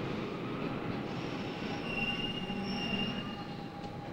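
Subway train running along the track. From about a second in, its steel wheels squeal on the rails in several high, steady tones over the running noise.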